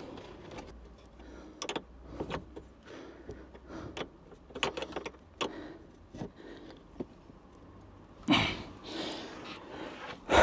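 Light, scattered metallic clicks and taps of a spanner working a battery terminal clamp nut, with one louder bump a little past eight seconds in.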